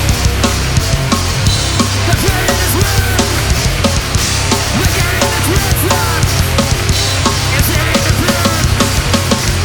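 Loud live heavy band music: fast pounding drums over dense distorted guitar and bass, with sliding pitched notes cutting through the middle.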